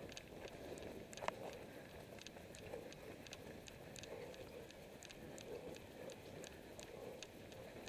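Running footsteps on a grassy trail, picked up through a helmet-mounted camera: a steady stride rhythm of about three faint ticks a second over a soft rustling haze.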